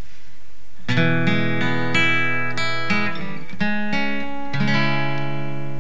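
Steel-string acoustic guitar playing an introduction: chords ring out one after another, starting about a second in.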